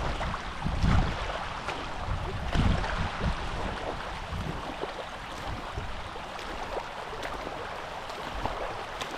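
Large river flowing steadily, with two brief low rumbles about one and two and a half seconds in.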